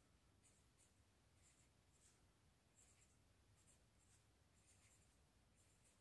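Faint scratching of a Waterman Kultur fountain pen's broad nib on paper, a short separate scratch for each stroke as digits are written one after another.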